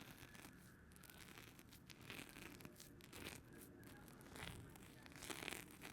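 Faint handling sounds from a plastic dessert cup of chocolate mousse and whipped cream: small clicks and a few brief soft rustles and scrapes as it is handled and a spoon goes in.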